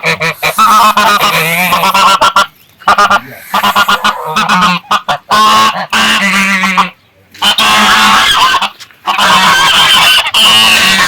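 A flock of domestic geese honking loudly and almost continuously, many calls overlapping, with a few brief pauses.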